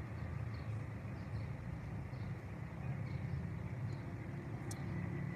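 Street ambience: a steady low hum of distant traffic, with faint high chirps over it.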